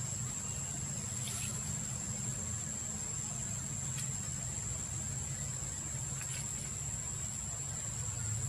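Outdoor ambience: a steady high-pitched insect drone over a constant low rumble, with a few faint brief clicks about a second and a half, four and six seconds in.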